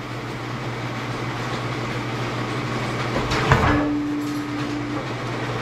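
Hydraulic press running steadily as its blade is forced down into an AC compressor's stator. A single sharp crack about three and a half seconds in is followed by a short steady whine.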